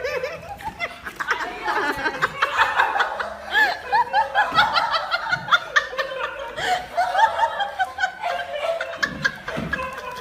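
People laughing in quick, repeated bursts, more than one voice at once.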